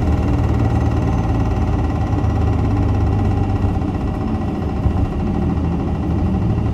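Diesel engine of a Nissan Diesel (UD) Space Runner RA city bus running steadily: a deep, even drone with faint steady high tones above it.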